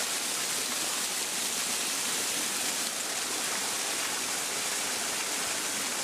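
Small waterfall: thin streams of water spilling over a rock ledge, a steady rush of splashing water.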